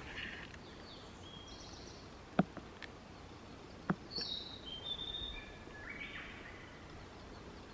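Small songbirds singing: several short chirped and trilled phrases, the busiest stretch from about four to six and a half seconds in. Two sharp clicks break in at about two and a half and four seconds.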